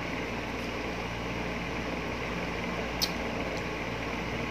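Mouth sounds of eating soft ripe mango flesh: a sharp wet smack about three seconds in and a fainter one just after, over a steady hum of room noise.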